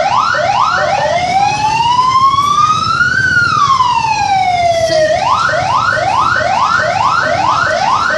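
Telolet horn of a PO Haryanto bus sounding a loud electronic siren pattern. It gives quick rising yelps about two or three a second, then one long wail that rises for about two seconds and falls for two. The quick yelps then return, and a new slow rise begins at the end.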